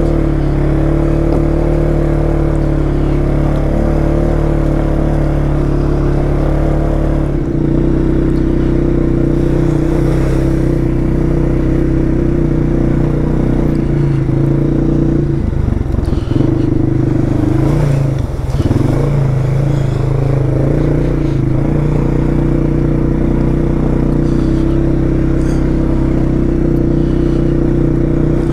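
Polaris Sportsman 570 ATV's single-cylinder engine running steadily under way on a trail ride. Its note shifts about a quarter of the way in, and there are short clattering jolts a little past halfway.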